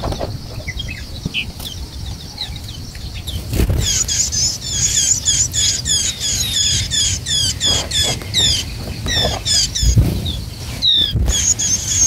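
White-eye nestlings begging: a few high chirps, then from about four seconds in a fast, continuous run of short, high, squeaky chirps, several a second, as the chicks gape for food. A low rumble with a few dull thumps runs underneath.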